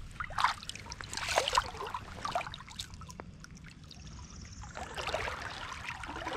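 Water trickling and splashing around a kayak, with a few short splashes and knocks in the first half.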